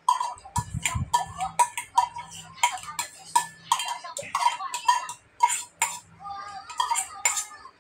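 Irregular run of sharp clicks and clinks, about two or three a second, from cutlery and dishes during a meal, over a faint steady hum.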